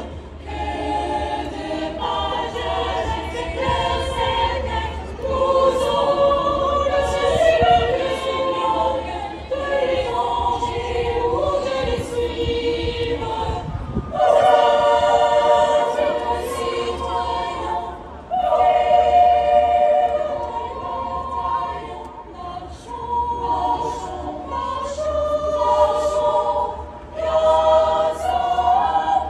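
Choir singing with an orchestra in long, sustained phrases, heard live through a large outdoor concert sound system from within the crowd; the music swells louder about halfway through.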